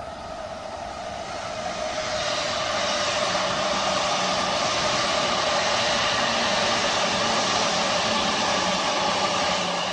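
Two electric trains, a JR East E353 limited express and an E233 commuter train, passing beneath on adjacent tracks: a steady rush of wheels on rail with a steady whine, growing louder over the first two seconds or so.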